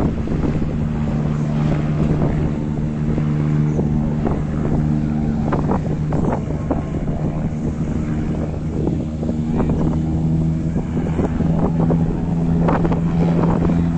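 An engine running at a steady pitch, with wind gusting on the microphone.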